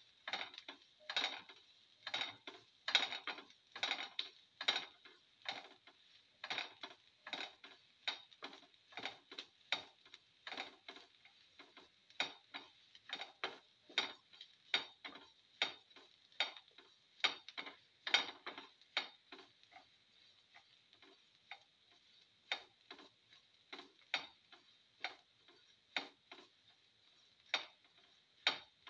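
Spatula scraping and knocking against the pan bottom while stirring shallots, cumin and mustard seeds as they sauté, a quick run of clicks about two or three a second.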